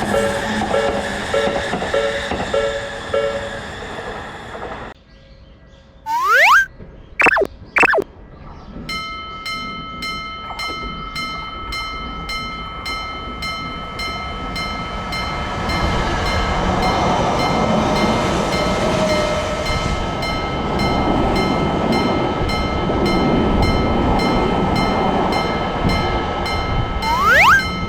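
Railroad crossing warning bell ringing, about two to three strikes a second, with a train rumbling through the crossing and growing louder under it. A few quick rising whistle-like sweeps come before the bell starts, and one more near the end.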